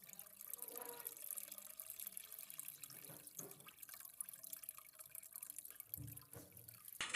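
Faint running and dripping water, as from a tap or liquid being poured, with a short low thud near the end.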